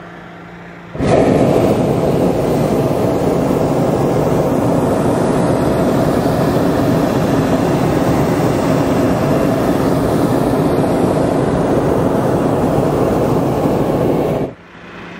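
Hot-air balloon's propane burner firing in one long, steady roar that starts abruptly about a second in and cuts off shortly before the end.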